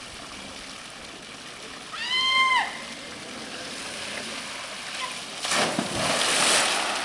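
A person plunges into a swimming pool off the end of a water slide with a big splash about five and a half seconds in, over the steady rush of water running down the slide. About two seconds in there is a short high-pitched cry.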